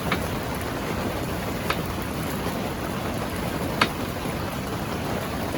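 Heavy rain pouring on the tent, under the steady rush of a flooded river. Three short, sharp clicks cut through it, the loudest about four seconds in.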